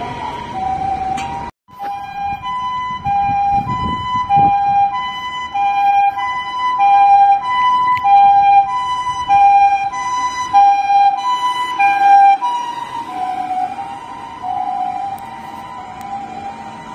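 Japanese ambulance two-tone siren, a high and a low note alternating steadily (the "pee-poh" pattern). It cuts off abruptly about a second and a half in, then starts again and grows louder. About three-quarters of the way in both notes drop in pitch and fade as the ambulance passes.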